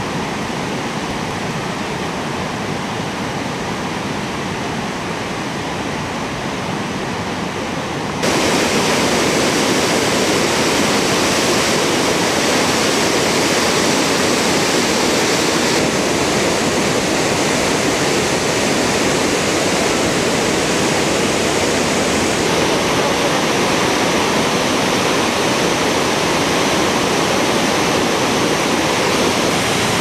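Rushing whitewater of river rapids and a waterfall: a steady, dense noise that jumps abruptly louder about eight seconds in and stays loud.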